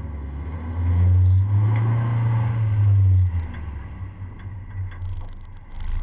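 Nissan 240SX rally car's engine heard from inside the cabin at low revs, swelling louder for about two seconds as the car moves off at low speed, then easing back to a quieter run.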